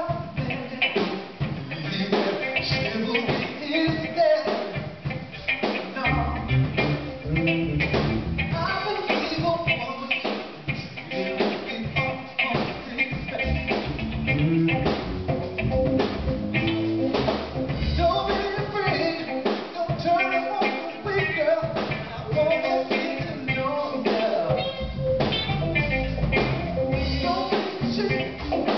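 A small live band playing a jazz jam, with drums keeping a steady beat under the other instruments.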